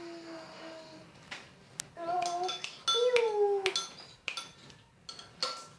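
A metal spoon clinking against a ceramic bowl several times, some clinks leaving a brief ringing tone. Between the clinks comes a toddler's drawn-out vocal sounds, each falling in pitch.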